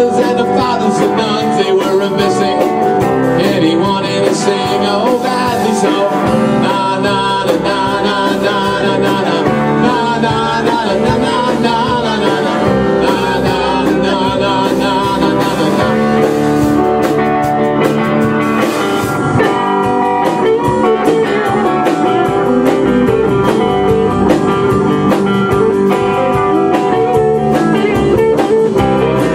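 A small rock band playing a song live: two electric guitars, an electric bass and a drum kit, at a loud, steady level.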